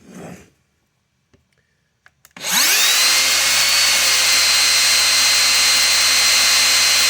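Makita LXT X2 brushless rear-handle circular saw switched on about two and a half seconds in, its motor whine rising quickly to full speed and then running steady with the blade spinning free, not cutting: a no-load test run.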